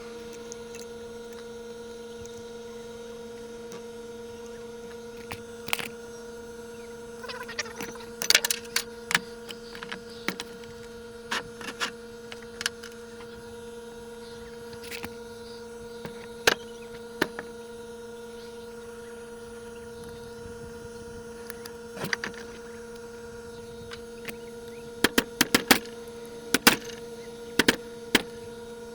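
A steady electrical hum throughout, with scattered sharp clicks and knocks of metal parts and tools being handled, coming in clusters about a third of the way in and again near the end.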